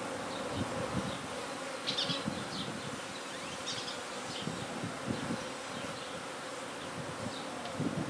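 Honey bee swarm buzzing around a hive box, a steady hum of many bees.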